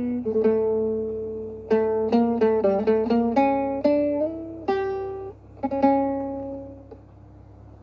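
Acoustic guitar playing a slow tune of plucked notes, a melody over a lower line, each note ringing and fading, with a quicker run of notes about two to three seconds in. The playing stops about seven seconds in.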